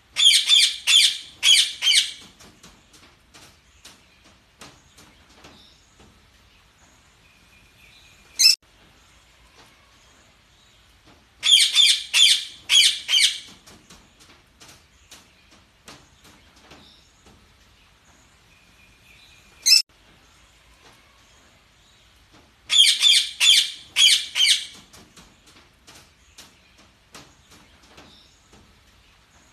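Budgerigars chirping: three loud bursts of four or five quick, high chirps, about 11 seconds apart, each later followed by a single sharp call, with faint twittering and ticks in between. The pattern repeats the same each time, like a looped recording.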